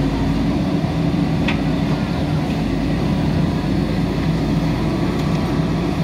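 JCB backhoe loader's diesel engine running steadily under load as the backhoe arm lifts a bucket of soil, with one brief click about one and a half seconds in.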